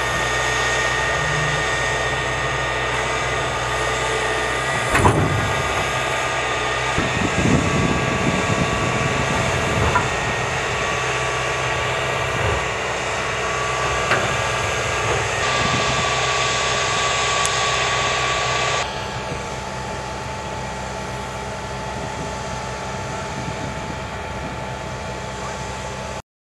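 Tracked armored bridge-launching vehicle running with a steady whine as its hydraulic launch arm works the steel scissor bridge. A few metallic knocks come about five, ten and fourteen seconds in. The sound drops in level about two-thirds of the way through.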